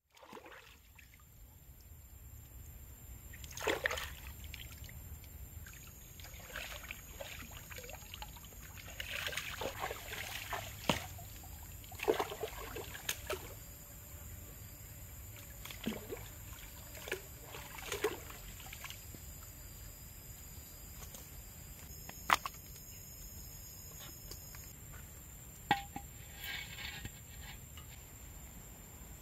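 Hands sloshing and splashing in river water, as when washing something at the bank, in irregular bursts. It is followed later by a couple of sharp single clicks.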